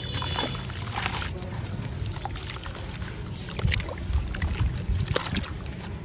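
Hands crumbling gritty sand-cement chunks in a tub of water and kneading them into wet mud: steady sloshing and squelching with gritty crackles, and a few sharper splashy crunches.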